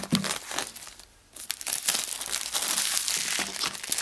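Clear plastic shrink wrap being stripped off a Blu-ray box and crumpled in the hands: dense crinkling and crackling, with a short pause a little after a second in.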